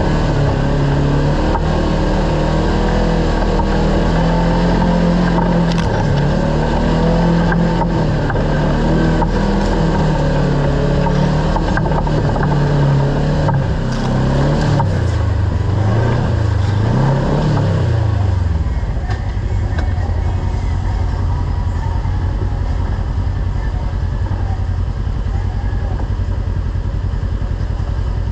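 Kawasaki Teryx KRX side-by-side's parallel-twin engine running under way. For the first two-thirds its pitch rises and falls with the throttle, then it settles into a steadier, lower drone.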